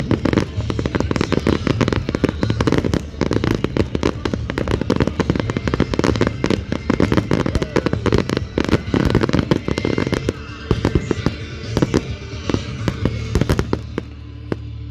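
Fireworks display: aerial shells bursting in a rapid, dense barrage of bangs and crackles that thins out after about ten seconds, with music playing underneath.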